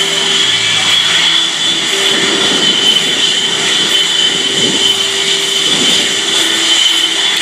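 Blue Angels F/A-18 Hornet jet engines running steadily on the ground: a constant high-pitched whine over a loud rushing noise.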